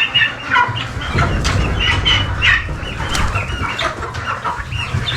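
A flock of turkeys calling in many quick, short notes while being caught, with wings flapping and scuffling as the birds are handled.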